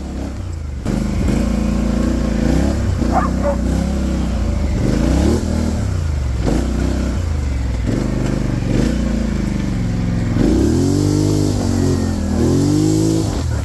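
2019 Polaris Sportsman 850 SP ATV's twin-cylinder engine running as the machine is ridden, its revs rising and falling over and over with the throttle. It revs up harder about ten seconds in and again near the end.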